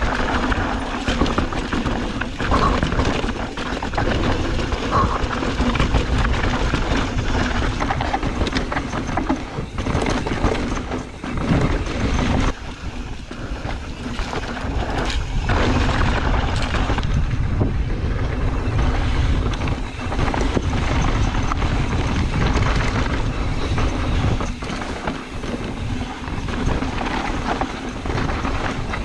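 Mountain bike being ridden on a dirt trail: a continuous rumble of tyres on dirt with the bike rattling over the ground.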